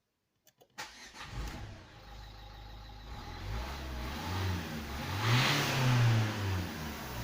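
Ford Focus 3 engine being cranked over by the starter without firing up, after a click about half a second in; the sound swells near the middle and is loudest around two-thirds of the way through. The car has a crank-no-start fault that the mechanic traces to a failing in-tank fuel pump giving too little fuel pressure.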